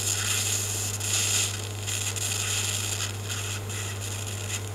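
EWM Tetrix microplasma welding arc burning on the ends of electrical wire as a filler rod is fed in: an uneven hiss with faint crackles over a steady low hum.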